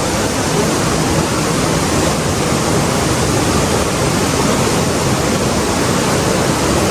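Loud, steady rush of water from a waterfall and rapids.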